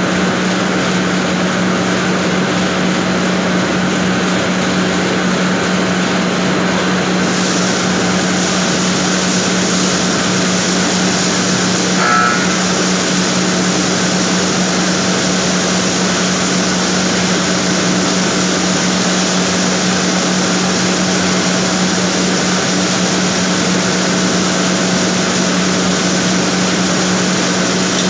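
Plastic-film production machinery running: a loud, steady factory drone with a constant low hum and a hiss that turns brighter about seven seconds in. A brief high squeal sounds a little before halfway.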